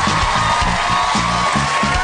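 Piano playing a steady, rhythmic rap backing beat, with audience noise underneath.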